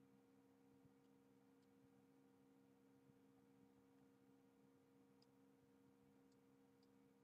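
Near silence: a faint steady hum over low hiss.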